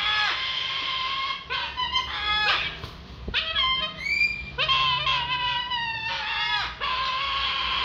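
Sulphur-crested cockatoo calling repeatedly: a run of long, rasping calls, each opening with a quick upward slide, with a brief lull about three seconds in.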